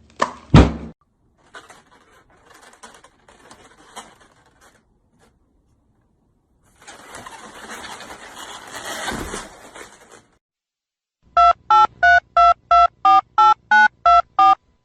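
Telephone keypad (touch-tone) dialing: about eleven short two-tone beeps, about three a second, near the end. Before the dialing there is a loud thud about half a second in, and then a rushing noise that builds for about three seconds in the middle.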